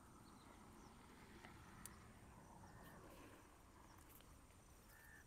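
Near silence: faint field ambience with a thin, steady high-pitched insect trill and a faint click about two seconds in.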